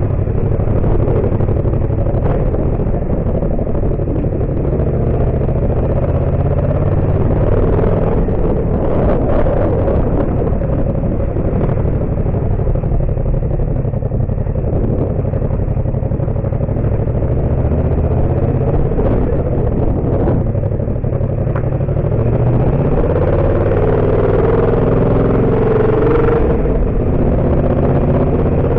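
Yamaha MT-07's parallel-twin engine running under way on a dirt road, its pitch rising and falling with the throttle. Short knocks and clatter from the rough surface come through now and then.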